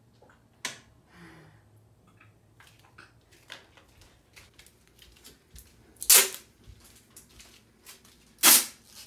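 A light click near the start, then scattered small knocks and two sharp, loud bangs about two seconds apart near the end, from a household gate and cabinet doors being opened and banged shut.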